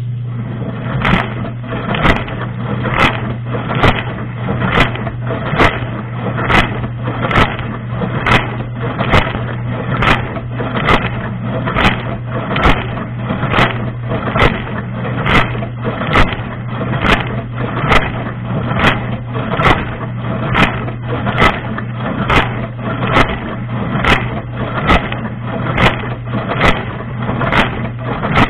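Dishwasher running its wash cycle, heard from inside the tub: a steady pump hum under rushing water, with a sharp hit repeating evenly just over once a second from about a second in.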